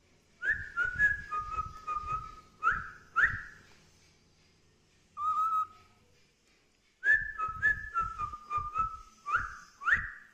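Pet cockatiel whistling: a quick run of short whistled notes, a single note about five seconds in, then the same run repeated near the end.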